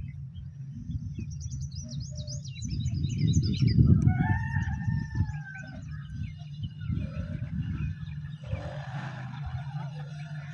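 Birds calling over a steady low rumble: a fast, high-pitched chirping trill for a couple of seconds, then a longer arching call a little before the middle, with scattered faint chirps after.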